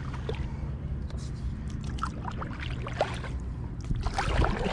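Kayak-style paddle stroking through calm water beside an inflatable paddleboard, water trickling and dripping off the blade in short splashes, with a louder stroke near the end. A steady low rumble runs underneath.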